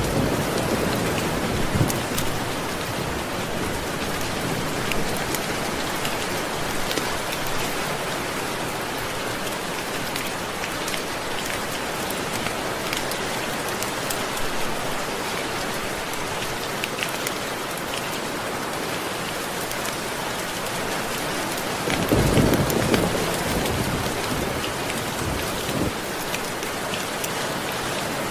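Steady rain falling, with scattered sharp drop ticks. A low rumble of thunder swells near the start and again about 22 seconds in.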